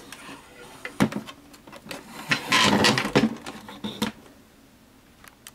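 Handling noise from a COPAL QG-872 flip clock's plastic case as it is picked up and turned round on a tabletop: a sharp knock about a second in, a stretch of rubbing and scraping in the middle, another knock about four seconds in, then a few light clicks.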